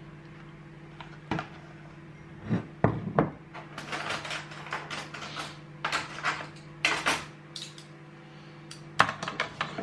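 Dishes being handled: a spoon clinking against a plastic takeaway tray and ceramic bowls knocking on a wooden table, a string of irregular knocks and clinks with the sharpest ones about three seconds in and near the end, over a steady low hum.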